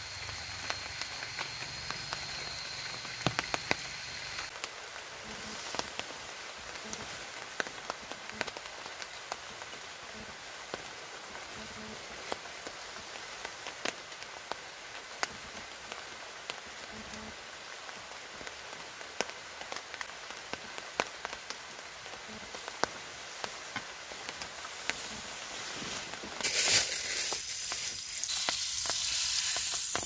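Rain falling on a tarp shelter: a steady hiss with many sharp drop ticks. About 26 seconds in, a louder rushing hiss comes in as a portable butane canister stove burns under a pot of water.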